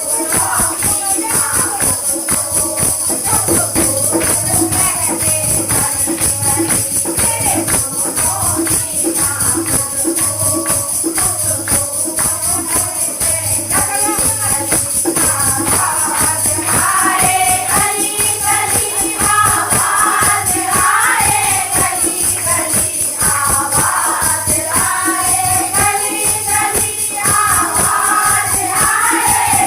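Kirtan group singing a Hindi devotional bhajan to the Mother Goddess (Mata Rani), with a fast, steady beat and jingling hand percussion. The singing grows fuller about halfway through.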